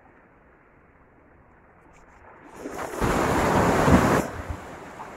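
Sea wave surging and splashing against shore rocks: quiet wash at first, then a loud rush of breaking water swelling about halfway through and fading a second and a half later.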